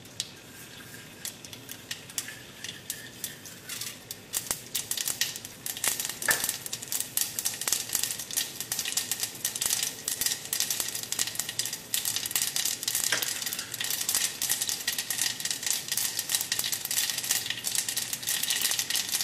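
Mustard seeds popping in hot coconut oil for a tempering: a crackle of sharp pops over a light sizzle, sparse at first and growing rapid and dense from about five seconds in.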